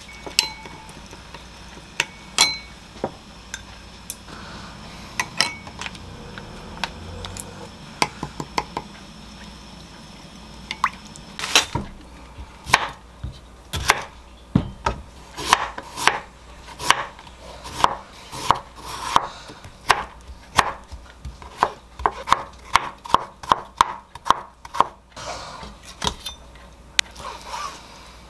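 A wooden spoon stirring sauce and knocking against a ceramic bowl, with a few scattered clinks. From about eleven seconds in, a chef's knife slices a cucumber on a wooden cutting board: a steady run of sharp chops, about two a second.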